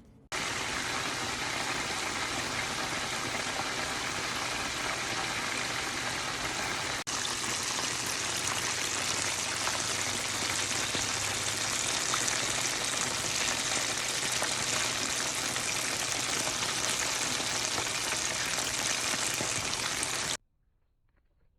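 Potato-starch-and-flour-coated chicken thighs sizzling in hot oil: a loud, steady sizzle that cuts in suddenly, breaks for an instant about a third of the way through, and cuts off near the end.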